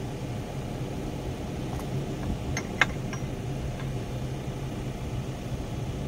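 Engine of a bucket-carrying machine idling steadily, with two short sharp clicks a little before halfway.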